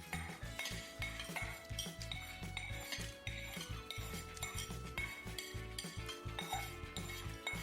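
Metal utensils clinking, scraping and knocking against pots, pans and dishes in quick irregular strikes. Soft background music with sustained notes plays underneath.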